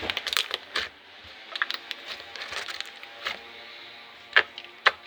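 Mushy slime being squeezed and poked by hand, giving irregular wet clicks and pops. Near the end the pops come sharper, about two a second.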